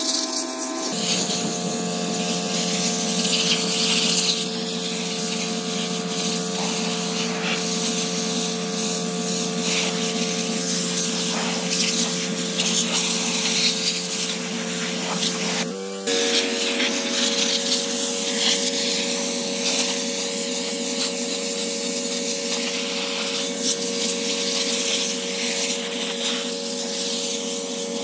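Honda-engined Mi-T-M pressure washer running steadily, its engine hum under the hiss of the high-pressure water jet. The hum jumps to a new pitch about a second in and again about halfway through.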